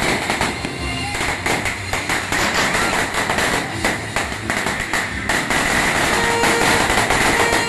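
A string of firecrackers going off in rapid, continuous cracks.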